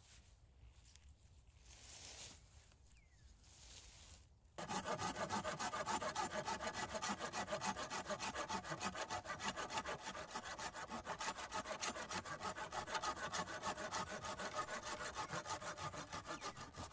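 Folding hand saw cutting through a dead wooden branch with rapid, even back-and-forth strokes, starting abruptly about four and a half seconds in.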